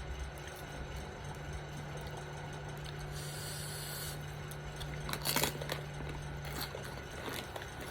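Eating sounds: a tortilla chip crunched once, a sharp crackle about five seconds in, with a brief rustle about three seconds in, over a steady low hum.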